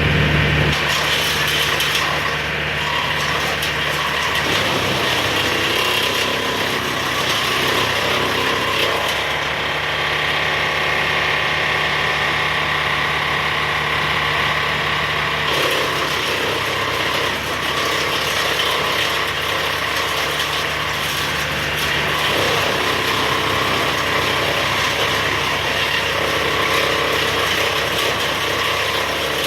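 An engine running steadily, with mechanical noise over it.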